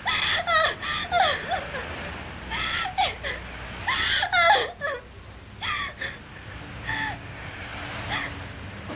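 A woman sobbing in short, broken bursts, about a dozen of them, with wavering cries and catches of breath in between.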